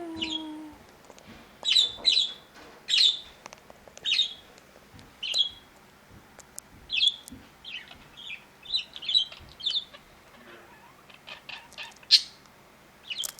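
Pet budgerigars chirping: short, sharp calls about once a second, with a few light clicks near the end.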